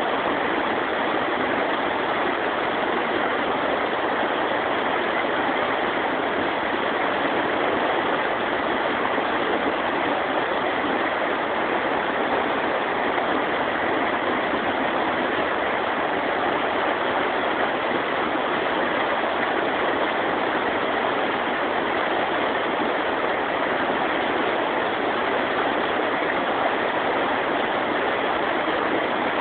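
River rapids rushing over rocks: a steady, unbroken rush of white water.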